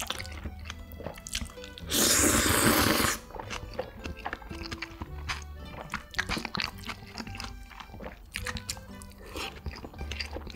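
Close-miked eating sounds: one long, loud slurp about two seconds in, then crunchy chewing with many small crisp bites. Soft background music plays underneath.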